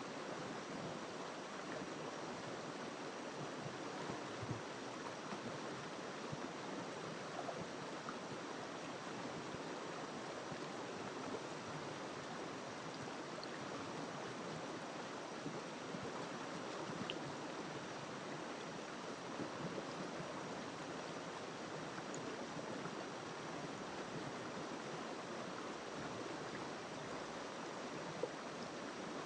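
A river flowing steadily, its water making an even rushing sound with a few brief louder moments.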